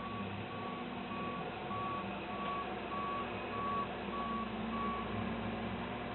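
Backup alarm on a 2009 New Holland L175 skid steer beeping steadily, about one and a half beeps a second, as the machine reverses, over its running diesel engine. The beeping stops about five seconds in.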